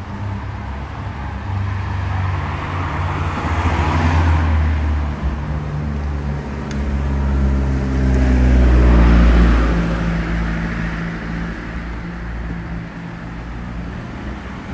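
Motor vehicles passing close by on a town street: one swells and fades about four seconds in, and a louder one about nine seconds in, over a steady engine hum.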